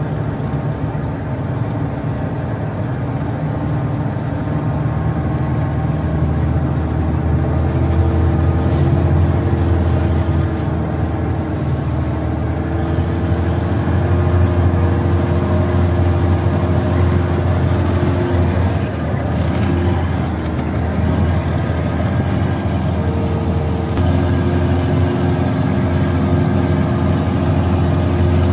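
Zyryanin tracked all-terrain vehicle's engine running steadily under way, heard from inside the cab, its note shifting a few times as engine speed changes.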